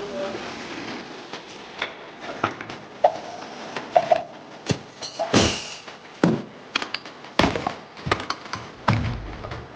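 Irregular metallic clanks, taps and knocks of hand tools and car parts being handled during air-suspension strut removal, a few of them with a brief ringing tone.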